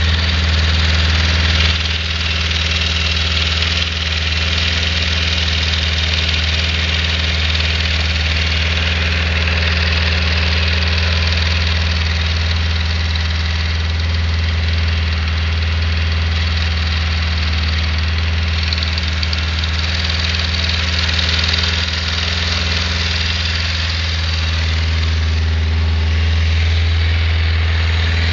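Yamaha XJR1200's air-cooled inline-four engine idling steadily with a knocking from the engine, which the owner suspects may be the valves.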